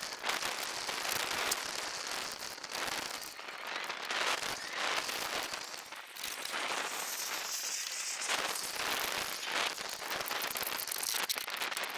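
Tape being peeled and torn off the metal collar of a grain bin's unloading auger: a dense, continuous crackling and ripping made of many small clicks.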